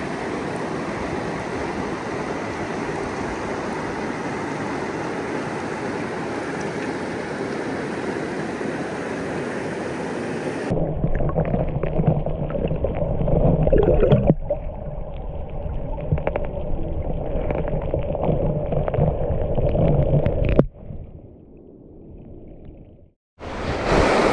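Rushing river water, a steady hiss, that turns abruptly duller and muffled after about ten seconds and changes several more times before dropping out briefly near the end.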